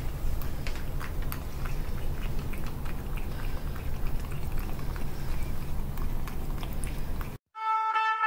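Bengal cat in a plastic recovery cone lapping liquid from a small metal dish: quick irregular wet clicks over a steady low rumble. The sound cuts off suddenly near the end, and music with a trumpet-like melody starts.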